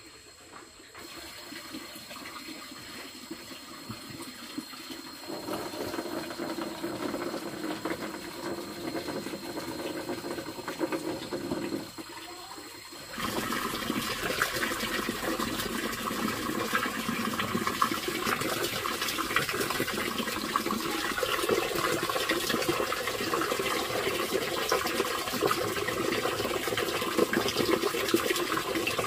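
Running water, a steady rushing noise that jumps suddenly louder about 13 seconds in.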